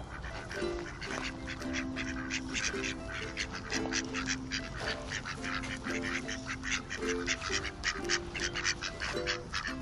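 Mallard ducks quacking in many quick, short calls, over background music with a slow melody.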